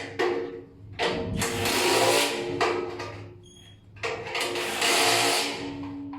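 A small electric motor running in two bursts of about a second and a half each, with short sharp sounds in between.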